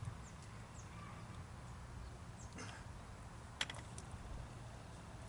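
A few light metallic clicks over a quiet low hum, the sharpest about three and a half seconds in. They come from hand tools on a small engine's valve rocker adjuster while the exhaust valve clearance is being set.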